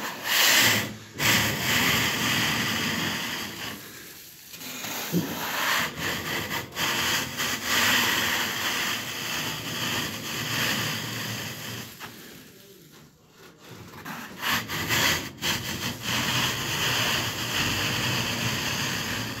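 Wide metal scraper blade scraping popcorn texture off a ceiling: a long, steady, scratchy rasp as the textured coating is stripped away, broken by two short pauses, about four seconds in and around two-thirds of the way through.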